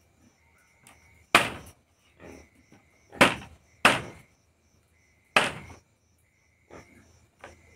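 Large machete-style knife chopping meat on a wooden block: four hard chops about a second or two apart, with a few lighter knocks between them.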